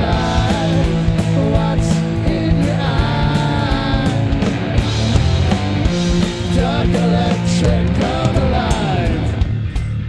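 Live rock band playing: electric guitars, bass and drums with cymbals, and a singer's voice over them. The full band thins out near the end.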